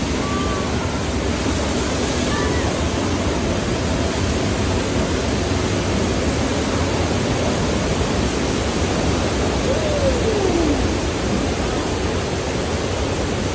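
Steady, loud rushing noise from the Studio Tour's earthquake subway-station set effects, with a brief falling tone about ten seconds in.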